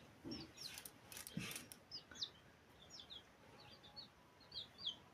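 Small birds chirping faintly: short, high, downward-sliding notes, repeated irregularly. There are a few faint clicks in the first two seconds.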